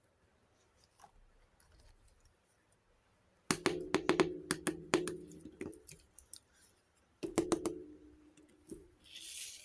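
Small plastic toy kitchen pieces clicking and clattering against each other in two bursts of quick clicks, each with a short ring. A brief rustle comes near the end.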